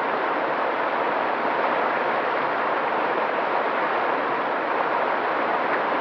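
Mountain stream flowing over rocks: a steady, even rush of water with no pauses or separate splashes.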